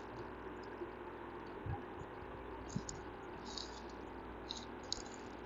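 Faint steady electrical hum and hiss of the recording setup, with a few soft clicks scattered through it.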